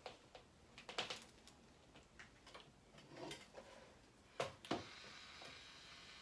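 Faint, scattered clicks and taps from handling a plastic chocolate decorating pen and a small pastry, then a faint steady hiss from about five seconds in.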